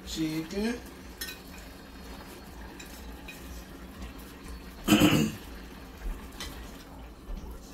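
Kitchen dishes and utensils clinking and knocking now and then, with one louder clatter about five seconds in.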